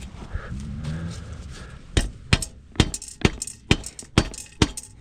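Seven sharp strikes, about two a second and starting about two seconds in: a wooden stick being pounded into a hole in a dirt bike's exhaust pipe to plug it, each blow with a short metallic ring.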